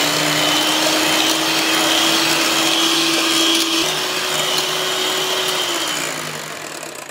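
Electric hand mixer running, its beaters whipping cream in a glass bowl: a steady motor whine whose pitch steps up slightly about four seconds in, then winds down and fades near the end as the mixer is switched off.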